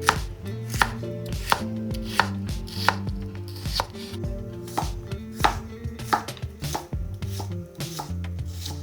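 A kitchen knife chopping food on a cutting board, with sharp, fairly evenly spaced strokes about one every two-thirds of a second.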